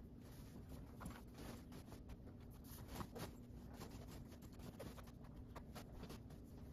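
Faint rustling and scraping of a canvas storage bag being pulled over a rolled mattress topper, in many short irregular strokes, the loudest about three seconds in.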